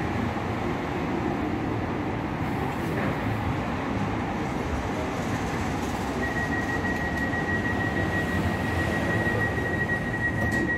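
Alstom Citadis X05 light rail tram standing at a stop, with a steady low rumble from its on-board equipment inside the cabin. A little over halfway through, a steady high-pitched tone starts and holds unbroken to the end.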